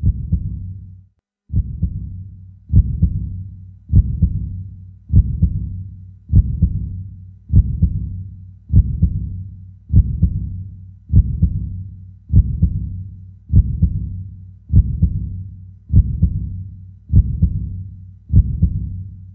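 A deep, heartbeat-like beat added as a sound effect: one low thump about every 1.2 seconds, each dying away, with a longer gap after the first.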